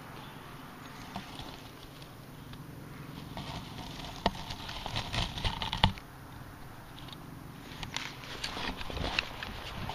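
Dry grass and dead leaves rustling and crackling, with a few sharp clicks, in two spells of handling: one from about three to six seconds in, the other near the end.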